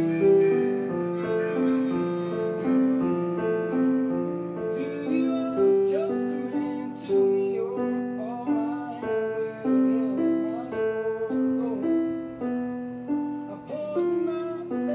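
Piano playing a slow melody of held notes, with a recorded song playing underneath. A singing voice comes in about five seconds in.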